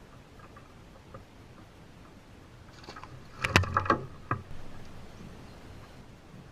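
A brief cluster of sharp knocks and clatter, five or six in quick succession, about halfway through, as on a small fishing boat.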